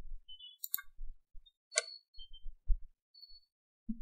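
Faint computer mouse clicks, two of them about a second apart, over a low room rumble.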